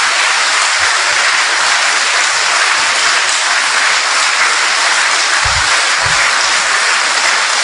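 Large seated audience applauding steadily, many hands clapping at once in a hall.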